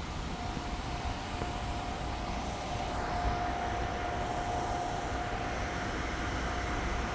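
Steady rain hiss, with a thin steady whine held underneath.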